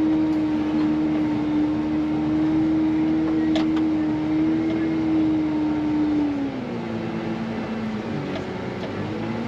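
Wheel loader's diesel engine running hard at a steady high pitch while plowing snow, then easing off with a drop in pitch about two-thirds of the way through, its pitch wavering up and down near the end.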